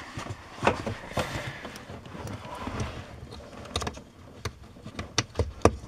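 Hands handling a plastic accelerator pedal position sensor assembly and its wiring connector under the dash: a string of sharp plastic clicks and knocks with rustling between them, several quick clicks close together in the second half.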